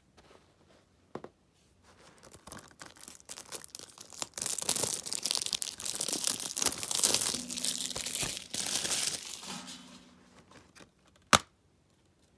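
Thin plastic wrapping being torn and crinkled off a Blu-ray case for several seconds, then a single sharp snap near the end as the case is opened.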